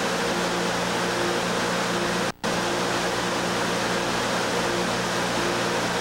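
Steady rush of blowing air with a constant low hum, as from a blower pushing air through sheet-metal ductwork. The sound cuts out for an instant about two and a half seconds in.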